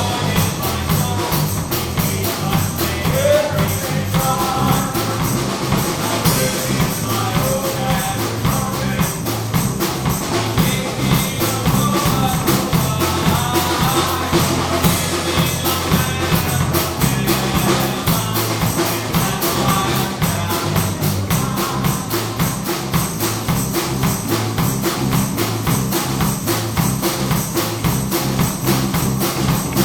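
Upbeat church praise music: drums and tambourine keep a steady fast beat over a bass line, with some singing.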